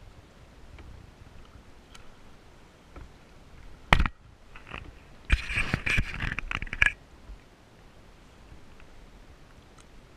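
A sharp wooden knock, then about a second and a half of rapid knocking and scraping, from the wooden paddle striking and rubbing against the canoe's hull and gunwale during a stroke.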